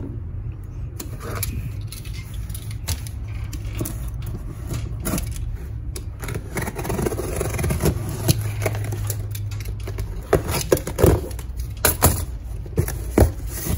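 Cardboard shipping box being handled and opened by hand: scraping, rustling and tapping of the cardboard and its flaps, with a cluster of sharper knocks near the end. A steady low hum runs underneath.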